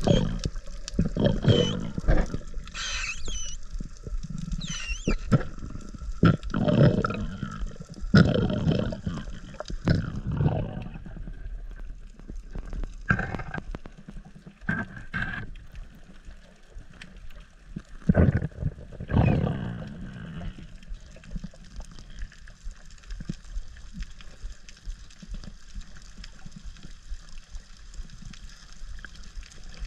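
Muffled underwater noise from a camera in a waterproof housing: irregular loud rushing bursts for most of the first two-thirds, then a steadier, quieter wash of water noise.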